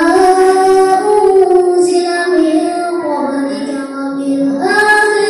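A boy's voice reciting the Qur'an in melodic tartil style into a microphone and loudspeaker, holding long notes that step up and down in pitch; a new phrase begins near the end.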